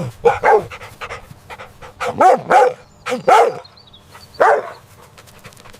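A dog barking, about half a dozen short barks in bunches with pauses between them.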